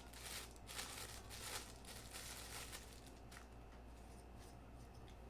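Faint rustling and crinkling of packaging being handled, in a run of short scratchy bursts over the first three seconds or so, then only a low steady hum.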